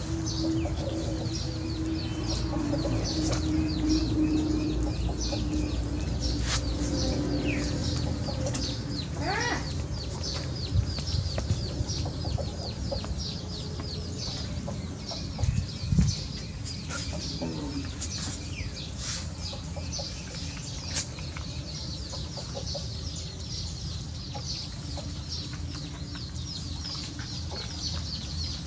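Backyard chickens clucking, with rapid high chirping throughout and a few knocks near the middle.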